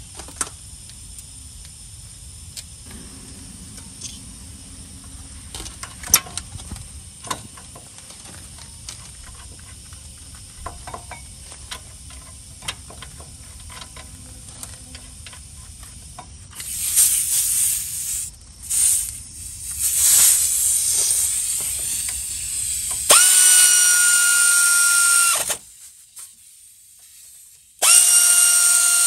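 Light metal clinks and knocks as a brake rotor and caliper bracket are fitted onto a truck's front hub, then rasping mechanical noise. Near the end a power ratchet runs twice for a few seconds at a steady whine, driving the caliper bracket bolts in.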